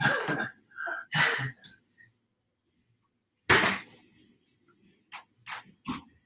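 Camera shutter clicking three times in quick succession near the end, a few tenths of a second apart, with a few short, sharp noises earlier on.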